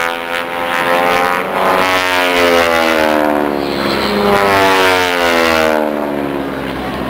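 Radial-engine propeller aircraft, North American T-6 Texans of the AeroShell team, flying past loudly. The engine note falls in pitch as they go by, twice.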